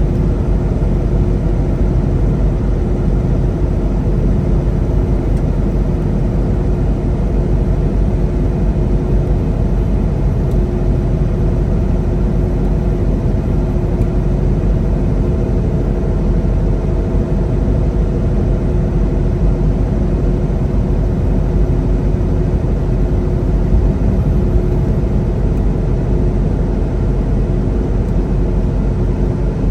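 Semi truck engine drone and road noise heard inside the cab while cruising. The sound is steady and unchanging, with a low rumble and a few constant hum tones.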